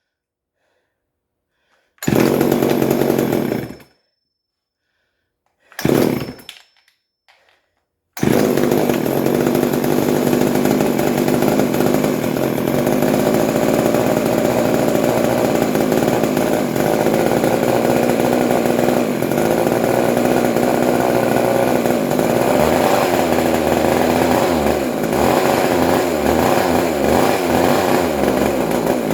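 A 1976 Remington Sportsman 2.1's 34.4cc two-stroke chainsaw engine runs loud in two short bursts that cut off abruptly. About eight seconds in, it starts running steadily and keeps going, its pitch wavering a little later on.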